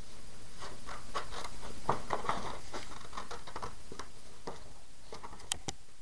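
Metallic scrapbook paper crinkling and rustling as a piece is cut out of it, with small irregular ticks and two sharp clicks near the end.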